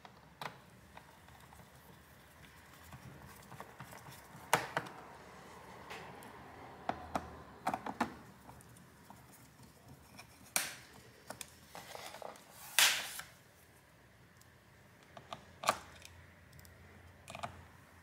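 Irregular light clicks and knocks, about a dozen scattered with pauses between them, the loudest about two-thirds of the way through.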